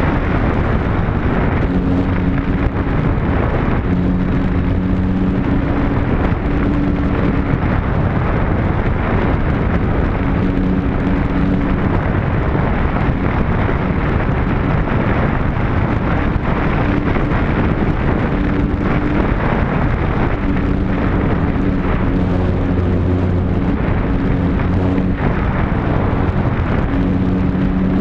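Onboard sound of a remote-control model Spitfire in flight in strong wind: a heavy, steady rush of wind buffeting the microphone. Through it, the hum of the model's motor and propeller comes and goes every few seconds.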